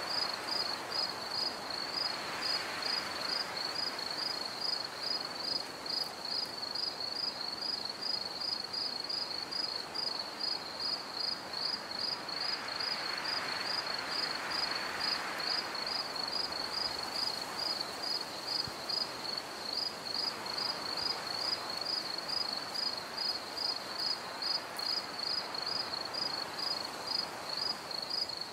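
Insect chirping in an even rhythm, about two high chirps a second, over a soft hiss that swells and fades a few times.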